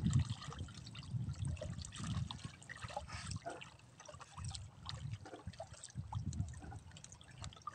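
Water lapping and trickling, with small irregular splashes, around a fish cage's submerged pipe frame.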